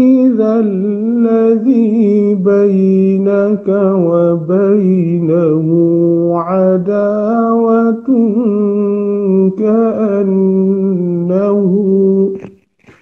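A man reciting the Quran in Arabic in a melodic, drawn-out chant, holding long notes with ornamented turns in several long phrases; it stops about half a second before the end.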